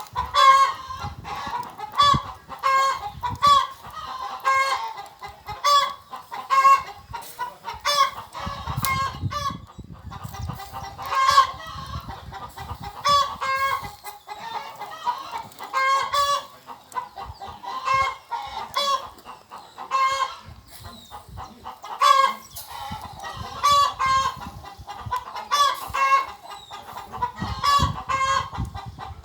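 Chickens clucking in a long run of short, evenly repeated calls, with a few brief pauses.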